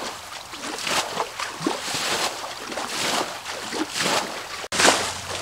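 Water being bailed out of a ditch by hand with a metal can: repeated scoops and splashes of muddy water thrown onto the bank, about one every second.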